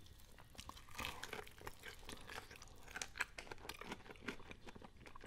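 Faint chewing of crispy fried chicken dipped in cheese sauce: a scatter of small crunches and wet mouth clicks.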